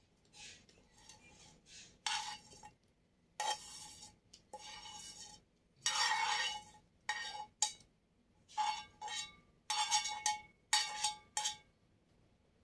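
A utensil scraping cooked chicken doner out of a frying pan, about a dozen uneven scrapes and knocks against the pan, several with a short ringing note.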